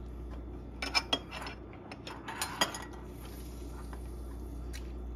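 Light clinks and knocks of kitchenware being handled on a countertop, in two short clusters about a second in and about two and a half seconds in, over a steady low hum.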